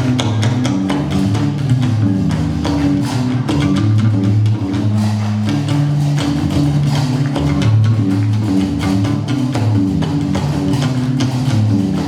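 Gnaoua music: a guembri bass lute plucking a repeating low bass line over a dense, rapid clatter of qraqeb metal castanets.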